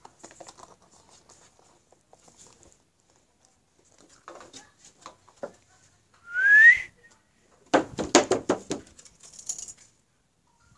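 A person whistling once, a short rising whistle about six seconds in. About a second later there is a quick run of roughly six short, sharp sounds.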